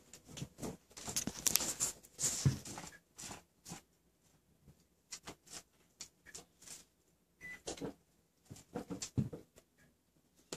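A dog rummaging at a small rug for a treat: a dense run of short scratchy scuffs over the first three seconds, then scattered brief scuffs.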